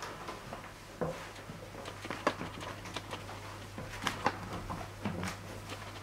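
Slow footsteps and rustling clothing: irregular soft knocks and scuffs a second or so apart, over a steady low hum.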